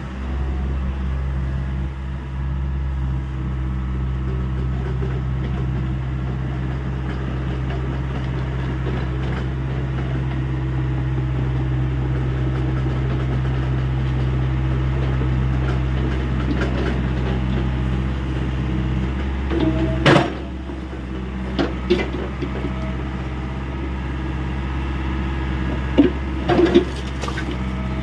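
Hyundai 85A SMART excavator's diesel engine running steadily under work. About twenty seconds in the engine note drops, and a few sharp knocks and clanks come through, more of them near the end.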